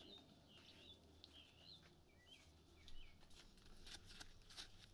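Faint birds chirping: a run of short, curved, repeated notes through the first half, with a few soft clicks later on.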